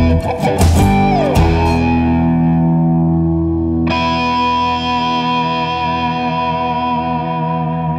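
Background guitar music: a few sharp strummed chords, a pitch sliding down about a second in, then a chord struck about four seconds in and left ringing.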